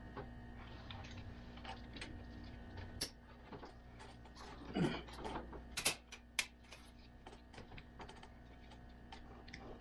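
Metal links of a Terra Grip tyre traction chain clinking and clicking as the chain is worked and hooked by hand, with a few sharper clanks about six seconds in, over a faint steady hum.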